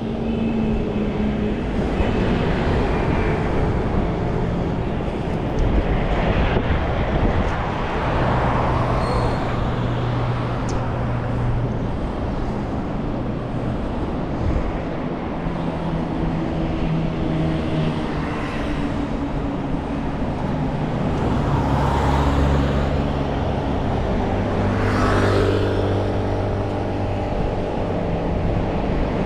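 Steady road traffic on a busy highway, with the hum of car and truck engines and several vehicles swelling past one after another.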